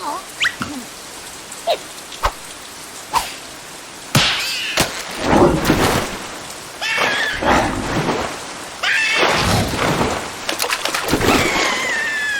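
Cartoon rain falling steadily, with sharp knocks in the first few seconds and then louder noisy bursts from about four seconds in, over which high, gliding squeaky calls rise and fall.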